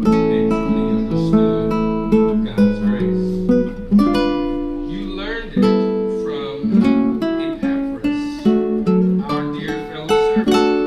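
Music: strummed guitar chords, changing every second or so.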